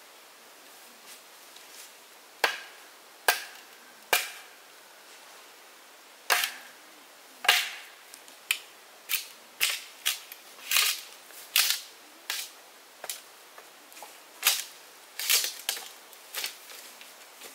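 A series of sharp, irregular knocks or strikes, about one a second at first and coming quicker in the second half, each dying away quickly.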